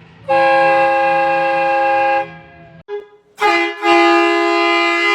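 Portable battery-powered train horn sounding chords of several notes: one blast of about two seconds, then after a short pause a quick toot and a second, longer blast in a lower chord that runs past the end.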